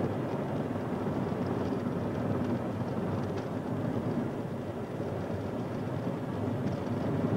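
A vehicle driving along a road: steady engine and tyre noise.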